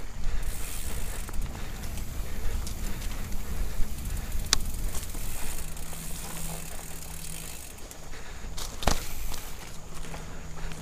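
Mountain bike rolling fast down a dirt forest singletrack, heard from a camera mounted on the bike: a continuous low rumble of the tyres over the ground, with two sharp knocks as the bike hits bumps, one about halfway through and one near the end.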